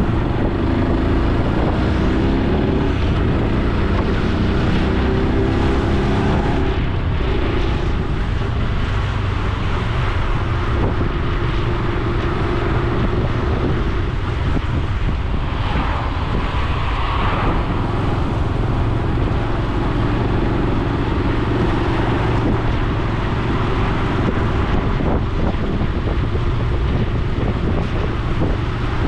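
Honda Super Cub C125's small air-cooled single-cylinder four-stroke engine and exhaust running as the bike rides at low street speed, with wind on the helmet-mounted microphone. The engine note climbs and drops a few times in the first six seconds as it accelerates through the gears.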